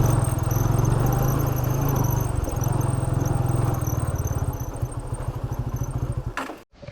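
Motorcycle engine running, its beat slowing toward idle over the last few seconds, then cutting off suddenly near the end.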